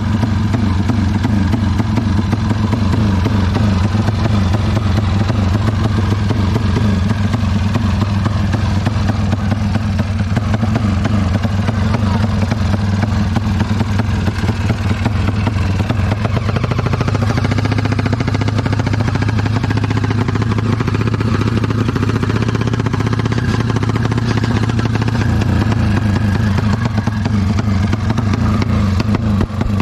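Drag-race motorcycle's engine running loudly at a steady pitch, held without a break, with a slight change in tone about 17 seconds in.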